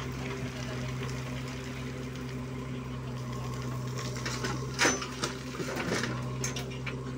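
JCB 3DX backhoe loader's diesel engine running steadily while the backhoe works. From about four seconds in, a bucketload of soil is dumped into a tractor trolley, and clods and stones clatter against the metal bed, with the loudest knock near five seconds.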